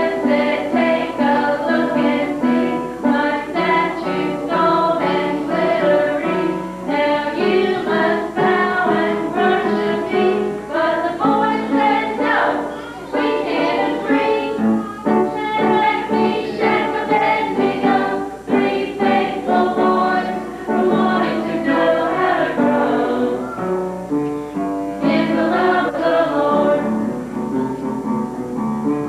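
A group of voices singing a song together, with instrumental accompaniment.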